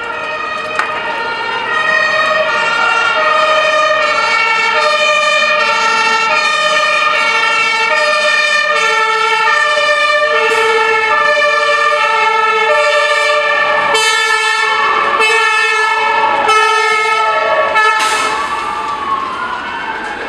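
Emergency vehicle sirens: a two-tone siren alternating between two pitches, joined about ten seconds in by a wailing siren that sweeps up and down. They grow louder about two seconds in and fade near the end.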